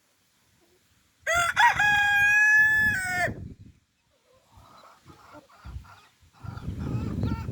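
A rooster crows once, starting about a second in: one loud crow of about two seconds that holds its pitch and drops at the end. Fainter clucking follows.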